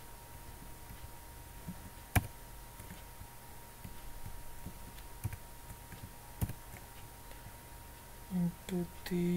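A few sharp, separate computer-mouse clicks, the loudest about two seconds in and another about six seconds in, over a faint steady electrical hum. Near the end come a couple of short hummed voice sounds.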